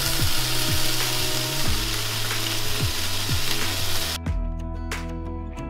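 Ground-beef patties sizzling in a skillet on medium-high heat as they are lifted out with a spatula. The sizzle cuts off suddenly about four seconds in, leaving background music.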